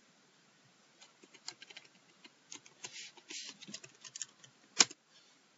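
Typing on a computer keyboard: a quick run of keystrokes, then one louder key click near the end.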